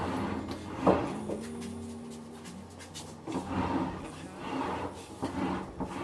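Refrigerator being pulled forward out of its built-in cabinet on its rollers, scraping and rumbling in several swells, with a sharp knock about a second in.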